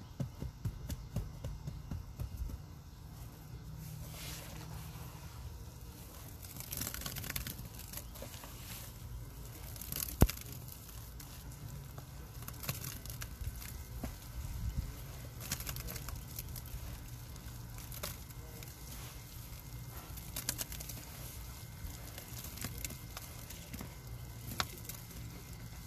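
Hands squeezing, pressing and crumbling dry powder in a plastic tub: soft crunching, crackling and dusty rustling as clumps break apart, with one sharp click about ten seconds in.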